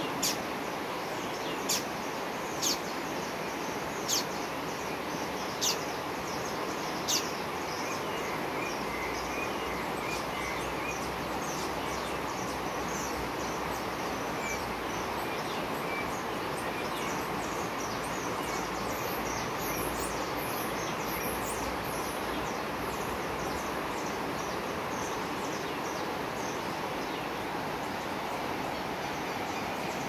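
Steady rushing of flowing water with birds calling over it. A bird gives six sharp, high calls, about one every second and a half, in the first seven seconds. After that come many quick, thin chirps.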